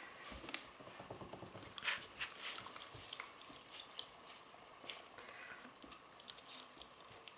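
Great Weimar puppies (Great Dane × Weimaraner) licking and nibbling at a person's hand. The sound is a faint, irregular run of small mouth clicks and smacks.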